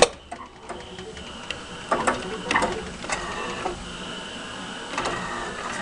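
Claw machine mechanism at work: a sharp click at the start, then scattered clicks and knocks as the claw and its gantry move.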